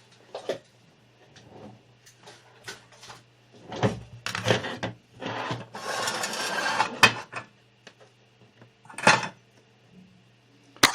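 Tools and parts being handled on an electronics workbench: scattered clicks and knocks with a stretch of scraping and rustling in the middle, over a faint steady low hum.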